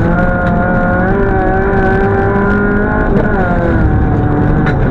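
Toyota Corolla FX-GTi rally car's four-cylinder engine at full throttle, heard from inside the cabin. The revs climb, drop quickly at an upshift about three seconds in, then climb again.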